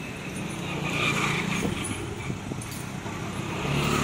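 Motorcycle and street-traffic engines running steadily, with a motorcycle engine coming close and growing louder near the end.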